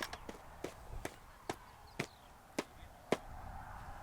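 A series of about seven short, sharp clicks, roughly two a second.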